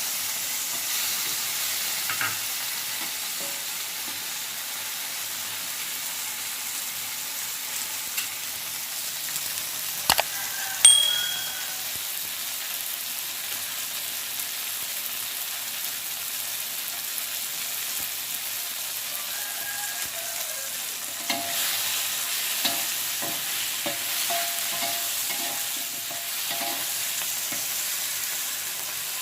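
Hot oil sizzling steadily as food fries in a pan, with a sharp metallic clink a little over ten seconds in and a spatula stirring and scraping against the pan through the last third.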